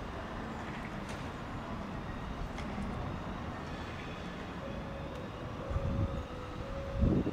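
MAN fire engine's diesel engine running steadily in the station bay. About halfway through, a faint alternating two-note tone starts up, and near the end wind buffets the microphone.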